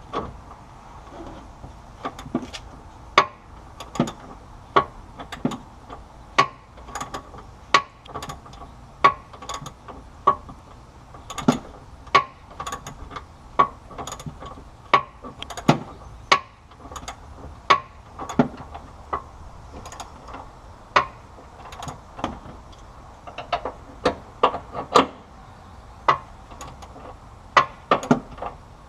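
Hand ratchet wrench clicking on a shock-absorber bolt, worked in short strokes with one click at a time, a sharp click every half second or so in uneven runs.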